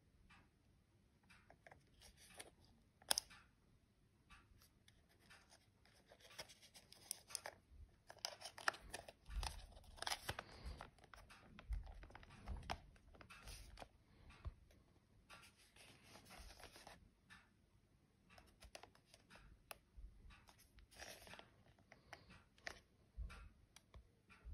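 Faint handling noise from a digital night-vision binocular turned over in the hands: scattered small clicks, taps and fingers rubbing on its casing, with one sharper click about three seconds in.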